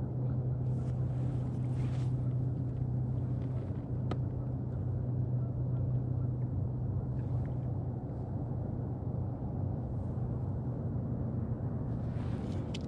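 A steady low motor hum over a faint rushing haze, with a few faint clicks.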